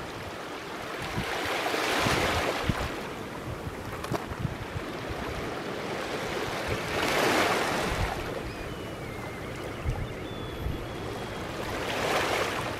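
Small sea waves washing onto a pebble beach, the surf swelling and falling away three times, about five seconds apart.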